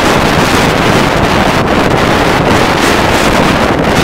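Strong storm inflow wind buffeting the microphone: a loud, steady rushing noise with rumble beneath.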